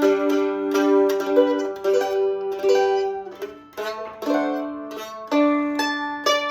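Loar LM-310F F-style mandolin playing a blues in G: a run of picked single notes and double stops, each note ringing briefly before the next.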